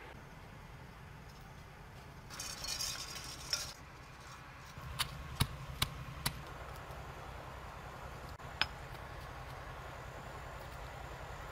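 A pestle pounding red chilies in a stone mortar: four sharp knocks about half a second apart, with one more a couple of seconds later. A short hissing noise comes a couple of seconds in, before the knocks.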